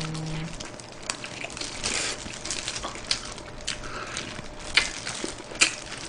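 A man biting into and chewing soy-glazed fried chicken close to the microphone: irregular crunches and wet mouth clicks, with the sharpest crunches a little before 5 seconds and 5.5 seconds in.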